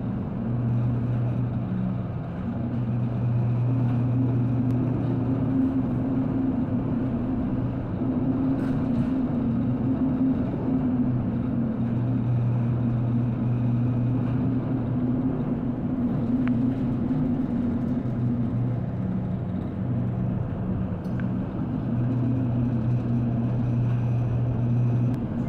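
Steady low hum of a cargo ship's engine heard on board, over a constant rush of wind and sea. The hum swells and eases every few seconds.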